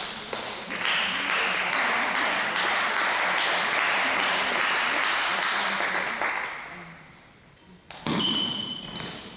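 Applause ringing in a sports hall for about six seconds, then fading out. Just after it falls quiet, a badminton rally starts with sharp sneaker squeaks on the court floor.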